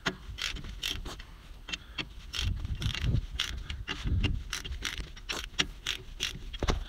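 Metal clicks and clanks of a torque wrench's ratchet head being worked back and forth on the steering stabilizer's mounting nuts, with a few dull knocks in between.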